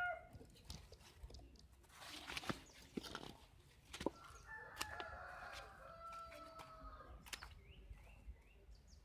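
A rooster crowing in the distance: one long, fairly faint crow around the middle. Scattered light clicks and ticks are heard throughout.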